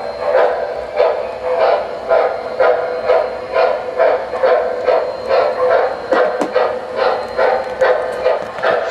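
Model steam locomotive's electronic sound system chuffing steadily, about two chuffs a second, over a constant hum of the train running on the track.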